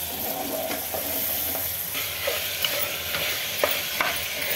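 Bone-in mutton pieces and onions sizzling in hot oil in an aluminium pressure cooker as a wooden spatula stirs them, with two sharp knocks of the spatula against the pot near the end.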